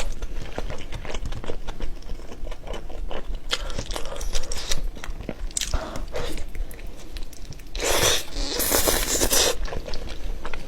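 Close-miked eating: biting and crunchy chewing, with many small crisp cracks and a louder, longer crunching stretch about eight seconds in.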